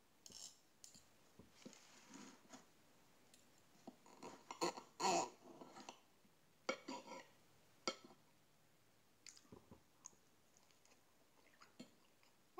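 Fork and knife cutting pancakes on a plate: scattered clicks and short scrapes of metal on the plate, the loudest cluster about five seconds in, with some chewing.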